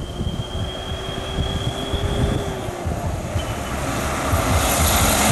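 Ashok Leyland diesel bus accelerating past under load, its engine pouring out black smoke. A thin high whine runs through the first half, and the sound grows louder near the end with a rush of tyre and wind noise as the bus comes alongside.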